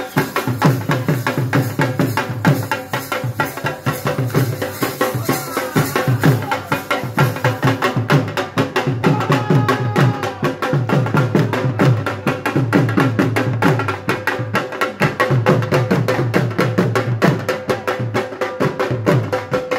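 Dhol drum beaten in a fast, driving rhythm for the Pashtun attan dance, with a steady held melody note sounding above the drumming.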